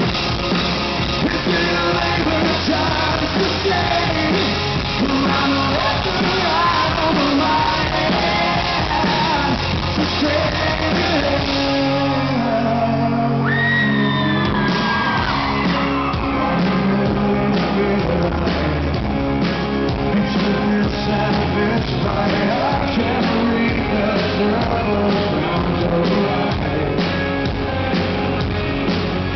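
Live rock band with distorted electric guitar, drum kit and a male lead vocal, played loud. About halfway through, the drums drop out for a couple of seconds and a high held note bends downward before the full band comes back in.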